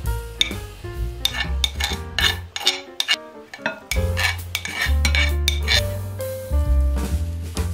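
Background music with a steady bass, over clicks and scrapes of utensils against a glass mixing bowl as diced ingredients are tipped in and stirred with a spatula.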